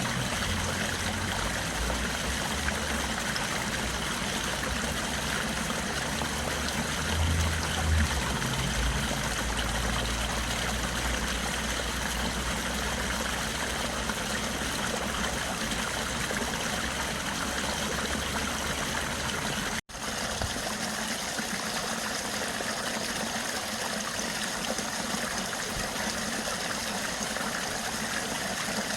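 Steady rushing and trickling of a flowing stream, with a low rumble under it that swells briefly about a quarter of the way in. About two-thirds of the way through the sound cuts out for an instant, and the water goes on without the rumble.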